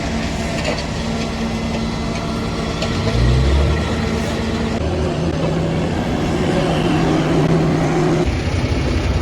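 Heavy engine of road-building machinery running steadily, with a brief low surge about three seconds in.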